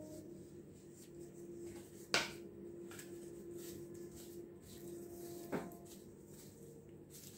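Faint rustling of plastic-gloved hands folding and kneading soft bread dough on a counter, with two sharp knocks, one about two seconds in and one near the middle, over a steady background hum.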